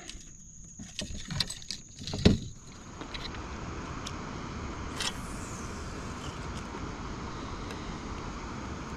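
Light clicks and knocks from handling fishing gear, with one sharp knock about two seconds in, then a steady rushing noise for the rest.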